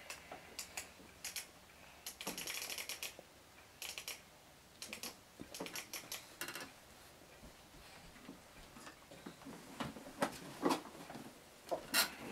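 Scattered light clicks and taps, with a busier run of clicking about two to three seconds in: a toddler handling a plastic toy and the rail of a mesh playpen.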